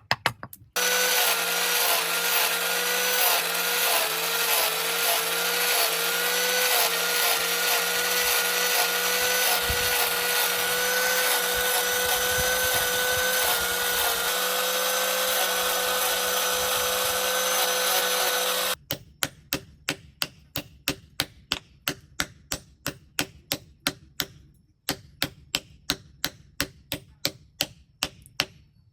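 An electric power grinder runs steadily on steel for about eighteen seconds, its pitch wavering slightly under load, then stops abruptly. Evenly spaced hammer blows on metal follow, about two to three a second.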